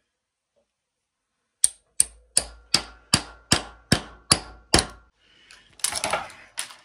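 Nine sharp metallic hammer blows, evenly spaced at about two and a half a second, on a steel socket used as a punch against a transformer held in a vise, each with a short ring, starting about one and a half seconds in. Near the end a short scraping clatter as the transformer core breaks apart.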